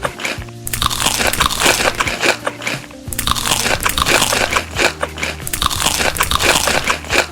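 Crunchy food being bitten and chewed close to the microphone, a dense run of sharp crunches in two long waves, with music playing underneath.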